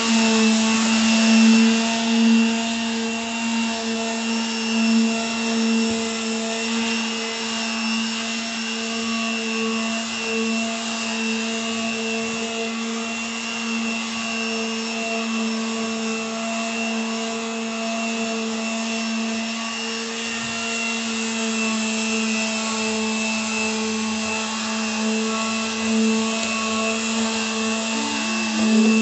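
Corded electric hand sander running at a steady speed with an even hum and hiss as its pad is worked back and forth across bare hardwood floorboards.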